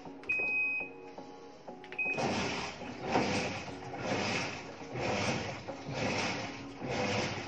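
LG top-load washing machine's control panel beeping as its power button is pressed: one longer beep, then a short beep about two seconds in. The beeps show the machine now powers on with its replacement PCB control board. After that a rhythmic whooshing repeats about once a second over soft background music.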